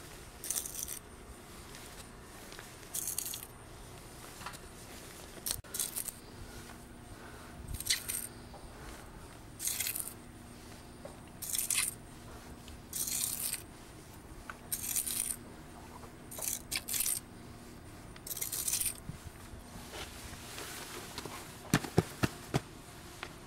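Short scraping, rustling noises repeating about every two seconds, then a quick cluster of sharp metallic clinks near the end.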